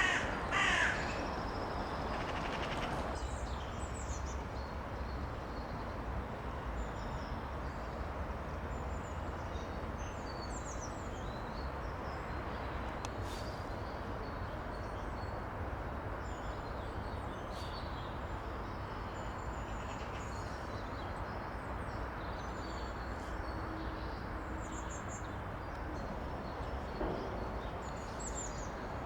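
Steady rush of a woodland stream, with small birds chirping briefly and high-pitched over it throughout. A crow caws loudly in the first second.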